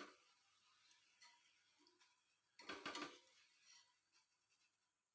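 Faint clinks and taps of a wire frying skimmer against a stainless steel pan as fried potato bites are scooped out of the oil, with a quick cluster of taps about two and a half seconds in.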